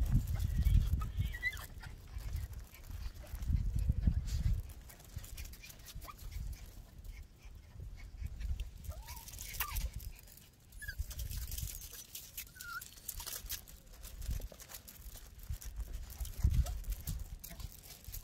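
Miniature pinscher puppies giving a few short, high whines or yips now and then. Bursts of low rumble near the start, a few seconds in and near the end.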